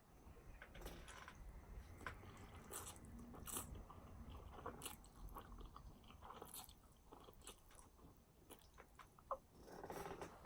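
Faint, close-up chewing and biting: soft wet clicks and small crunches of a mouthful of food being eaten, irregular and spread throughout.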